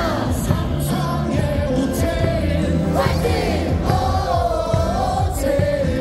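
Korean baseball cheer song played loudly over the stadium speakers, with the crowd singing along.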